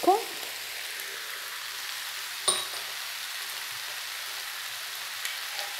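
Ground beef and vegetable mixture sizzling steadily in an electric skillet, an even frying hiss. A single sharp knock about two and a half seconds in.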